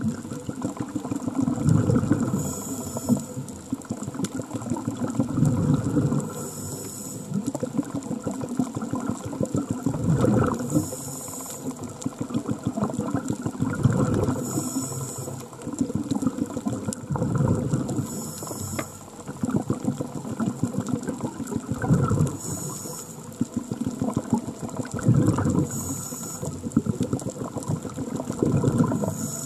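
Scuba diver breathing through a regulator underwater. A short hissing inhale comes about every four seconds, each followed by a longer gurgle of exhaled bubbles.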